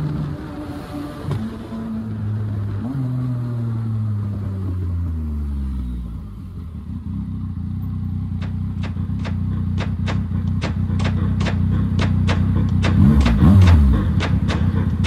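Yamaha MT-09 inline-three motorcycle engine with a loud exhaust, heard from the rider's seat. The engine note falls in steps, with two short throttle blips, as the bike slows through the gears, then settles low and steady near idle. Near the end a quick throttle blip rises and falls, the loudest moment, and a regular ticking about twice a second runs through the second half.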